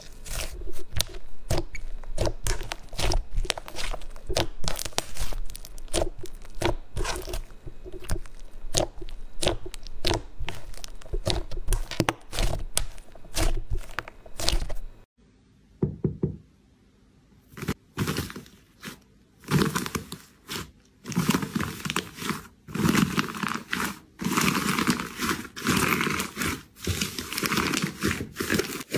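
Hands playing with slime: rapid sharp pops and clicks as it is pressed and squeezed, then after a brief pause about fifteen seconds in, denser crinkly crackling as another slime is worked.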